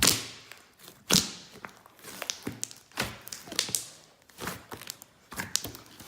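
A big batch of slime being handled, giving a series of irregular sharp slaps and pops, the loudest about a second in.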